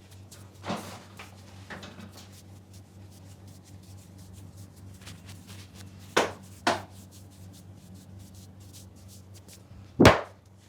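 Hands working a head massage: faint rubbing and crackling on the hair and scalp, broken by sharp hand strikes. One comes about a second in, two follow in quick succession past the middle, and the loudest comes near the end.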